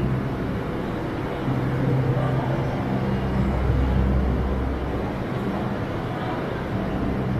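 Steady low rumble and hum of a Delhi Metro train standing at an underground platform, its onboard equipment running, with the deep rumble swelling for a few seconds in the middle.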